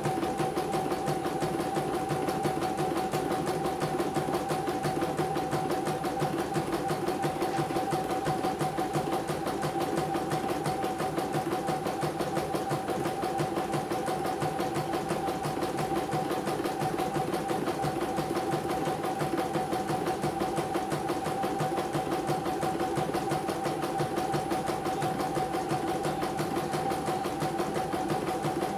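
CNY portable computerized embroidery machine stitching a design: the needle runs at a fast, even stitch rate while the hoop carriage steps the fabric, a steady mechanical chatter with a constant hum that does not pause.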